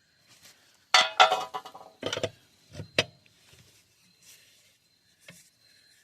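Metal clanking and clinking as tools and parts are handled during work on a truck's front wheel: a loud clank with a short ring about a second in, a few more clanks, a sharp click at three seconds, and a faint tap near the end.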